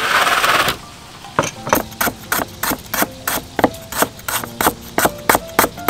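A short splashing rustle as leafy greens are handled in a basin of water, then a cleaver chopping lemongrass on a wooden board: steady sharp knocks about three times a second.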